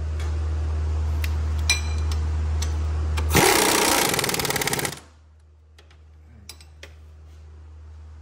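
Power impact tool hammering rapidly in one loud burst of about a second and a half, a little past the middle. Before it a steady low hum stops as the tool starts, and a few light clicks follow.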